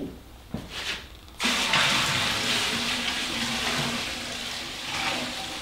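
Fermented plum wash poured from a bucket into the boiler of a home-made still, a steady splashing rush of liquid that starts suddenly about a second and a half in and tapers off near the end.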